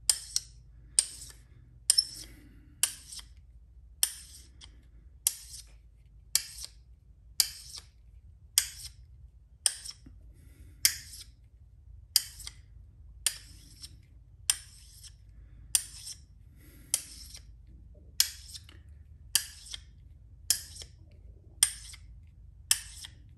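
A small magnet stroked again and again along a steel screwdriver shaft to magnetize it: a short, sharp scrape about once a second, some twenty strokes in an even rhythm.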